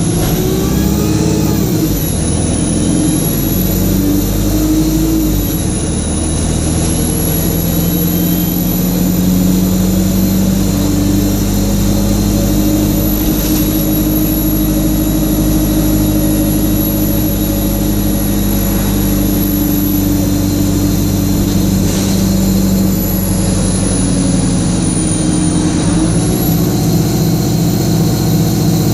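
Diesel bus engine running under way, with a very high-pitched turbocharger whine over it that rises and falls with engine speed. The whine dips several times and climbs again near the end.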